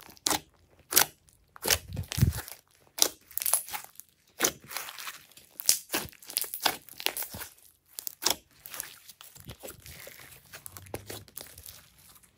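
Hands squeezing, kneading and stretching glossy slime: irregular sticky clicks and pops, some in quick runs.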